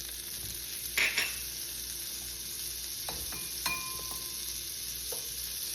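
Butter sizzling as it melts in a hot frying pan, a steady hiss, with a sharp clink about a second in and a few light utensil taps later.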